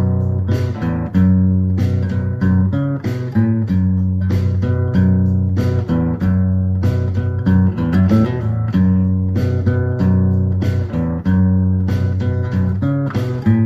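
Background music: guitar-led instrumental track with strummed and plucked chords over a steady bass line.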